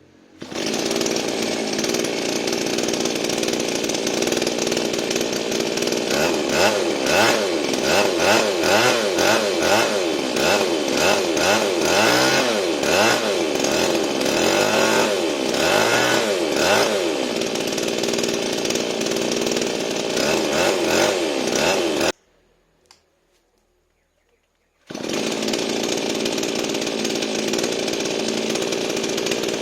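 Lawn mower's small petrol engine running after its clogged carburetor was cleaned, with the engine speed rising and falling repeatedly for a stretch in the middle. The sound cuts off suddenly for about three seconds, then the engine is heard running again.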